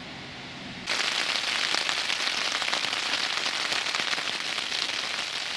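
Heavy rain pattering steadily on the flysheet of a one-man hiking tent, heard from inside the tent. It starts abruptly about a second in, after a faint low hum.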